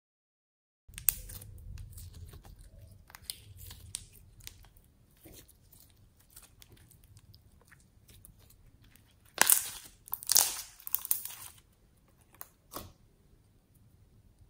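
Putty slime being kneaded and stretched into store-bought slime by hand: sticky crackling and popping, with scattered faint clicks and a loud run of crackles about ten seconds in.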